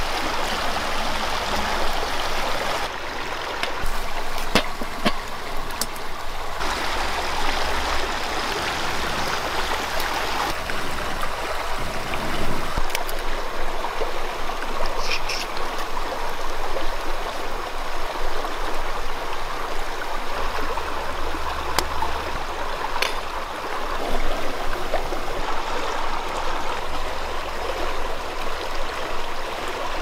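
Fast-flowing stream rushing steadily over rocks, with a few light clicks scattered through it.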